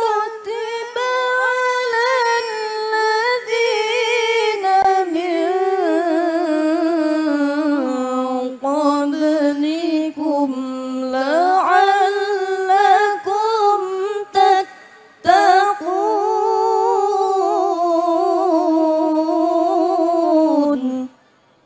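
A young woman's solo Quran recitation in the melodic qiroah style, amplified through a microphone: one voice in long, ornamented phrases with a wavering pitch, broken by a few short pauses for breath and stopping near the end.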